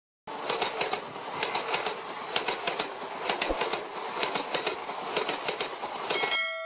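A train passing, its wheels clacking over rail joints above a steady rushing rumble; it starts abruptly a moment in. Near the end the train noise stops and a steady pitched tone begins.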